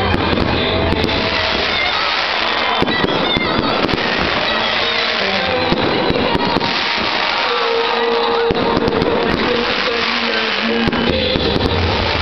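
Fireworks display: rockets bursting with dense, continuous crackling, mixed with music.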